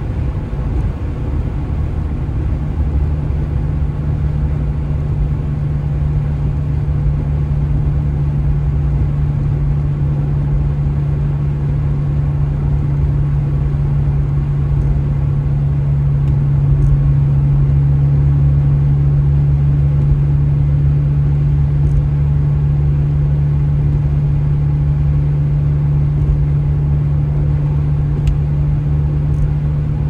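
Car driving along a highway: a steady low drone of engine and road noise with a strong hum, getting a little louder about halfway through.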